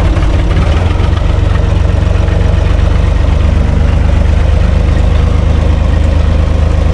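UTB 445 tractor's four-cylinder diesel engine running steadily, heard from inside the cab.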